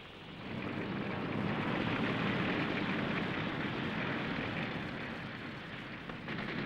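Tanks moving: engines running and tracks clattering, a steady dense noise that comes up sharply about half a second in.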